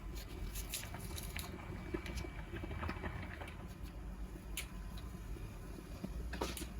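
Knife cutting into a sprouting onion by hand: scattered faint crisp cuts, small clicks and squishy sounds from the onion's layers.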